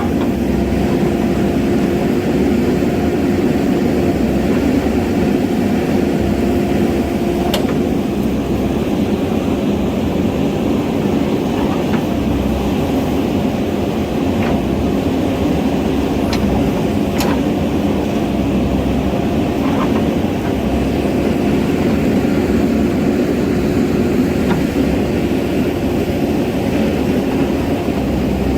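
Diesel engine of a JCB backhoe loader running steadily at a constant pitch, with a few brief sharp clicks.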